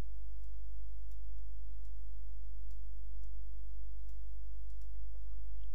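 A steady deep hum runs throughout, with about a dozen faint, irregular computer mouse clicks over it.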